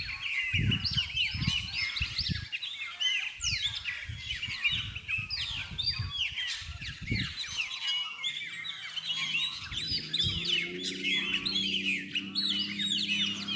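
A dense chorus of many birds chirping and calling at once, rapid overlapping short whistles. Low rumbling gusts come and go in the first half, and a steady low droning hum sets in about ten seconds in.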